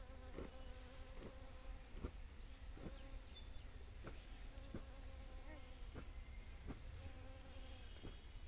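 Honeybees humming steadily and faintly as they work mustard flowers, with a few soft clicks.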